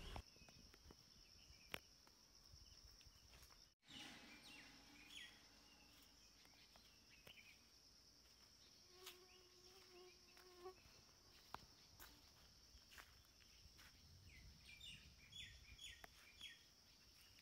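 Faint outdoor ambience: a steady high-pitched insect drone, with short bird chirps here and there.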